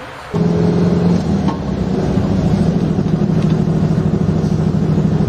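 Volkswagen T1 bus's air-cooled flat-four engine running steadily with a fast, even beat. It cuts in abruptly about a third of a second in.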